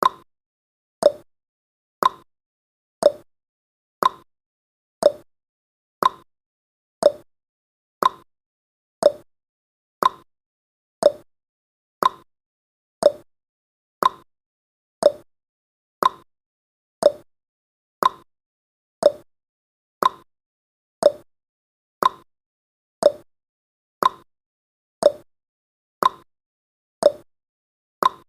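Clock-ticking sound effect of a countdown timer: one short tick every second, alternating higher and lower in pitch like a tick-tock.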